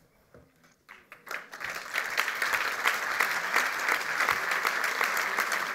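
Audience applause: a few scattered claps about a second in, swelling quickly into steady clapping from many hands.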